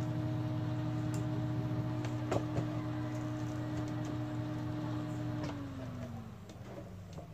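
Incubator circulation fan motor running with a steady electric hum, with a couple of sharp clicks about two and a half seconds in. About five and a half seconds in its pitch falls and it winds down as its power is cut.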